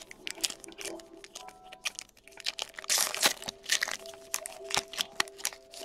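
A foil trading-card pack wrapper being torn open and crinkled by hand: a quick run of sharp crackles, loudest about three seconds in. Faint background music underneath.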